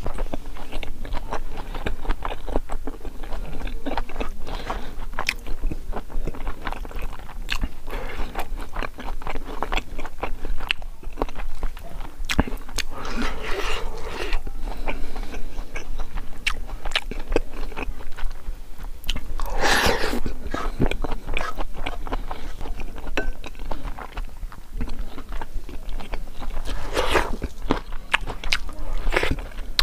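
Close-miked chewing of crispy fried pork, a steady run of crisp, irregular crunches with a few louder mouth noises.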